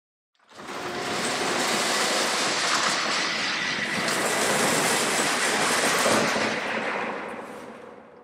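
A dense rattling, clattering mechanical noise that starts about half a second in, holds steady, then fades away over the last two seconds.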